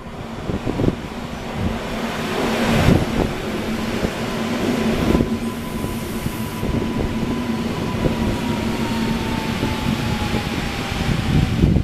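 Two coupled EN57ALc electric multiple units rolling slowly past on arrival at the end of their run, with a steady rumble of wheels on rail. Over it a steady hum and a higher whine that slowly falls in pitch in the second half, as the train slows.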